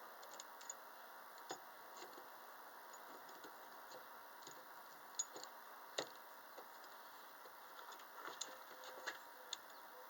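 Faint, irregular small clicks and taps from handling the rifle scope and its cantilever mount, with two sharper ticks about five and six seconds in.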